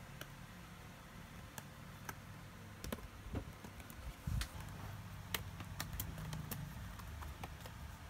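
Irregular sharp plastic clicks and light scrapes as a plastic card is worked along the top edge of an Acer V5-431 laptop keyboard, prying it loose from the case. The clicks come scattered, a dozen or so, and are loudest around the middle.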